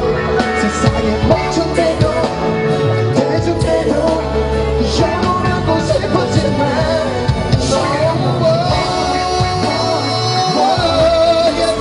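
Pop song with a male lead voice singing over a full band or backing track, performed on stage.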